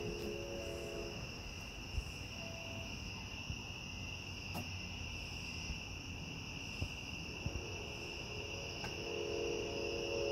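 Steady, high-pitched chirring of crickets, unbroken, over a low rumble with a few faint clicks.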